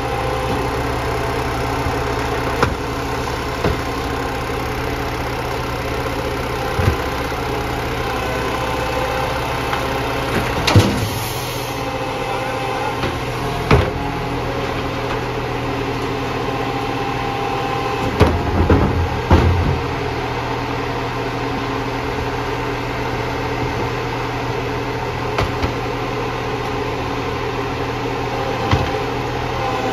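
Iveco side-loader garbage truck's engine idling steadily. A few short knocks and clunks stand out over it, with a quick run of several a little past halfway.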